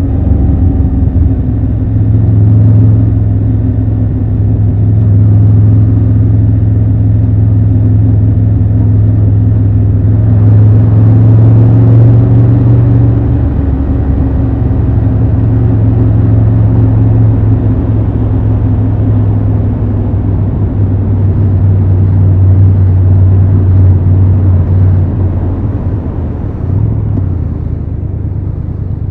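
Triumph Tiger 1200 Rally Pro's inline three-cylinder engine running at fairly steady revs while riding, with road and wind noise that gets louder for a few seconds about a third of the way in. The engine eases off and the sound drops near the end.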